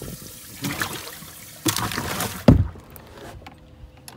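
Water splashing and sloshing in a boat's livewell, then the livewell lid shuts with one sharp thump about two and a half seconds in.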